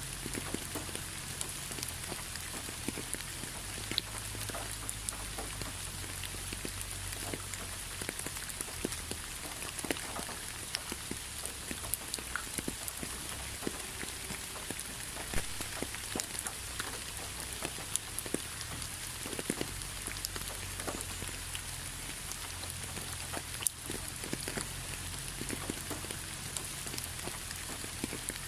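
Steady rainfall, with many individual drops striking close by as sharp ticks over an even hiss.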